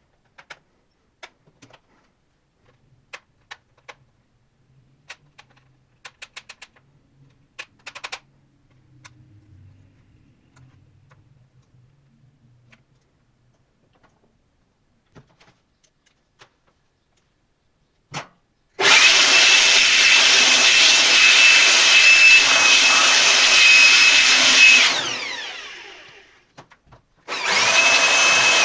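Small scattered clicks and taps of parts being handled, then a handheld high-speed electric tool runs for about six seconds with a steady high whine, spins down with a falling pitch, and starts up again near the end.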